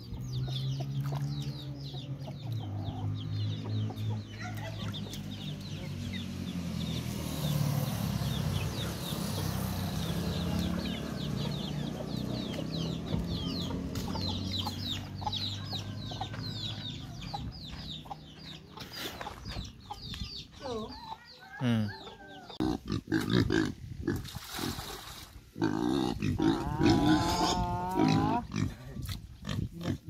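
Chickens feeding: hens clucking and chicks cheeping rapidly in quick high peeps. In the last part pigs grunt and squeal loudly in irregular bursts.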